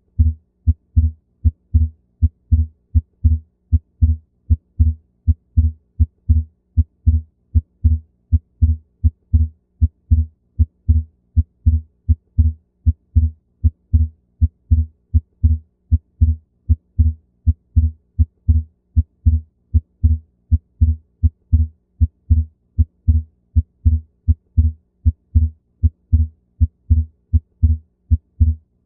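Heart sounds heard through a stethoscope: a regular heartbeat of low thumps, the second heart sound (S2) split into two close components. The split is fixed, not changing with breathing.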